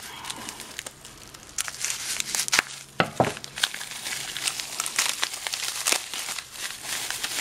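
Thin clear plastic packaging bag crinkling as it is handled and worked open by hand: irregular crackling with a few louder sharp snaps, the loudest about three seconds in.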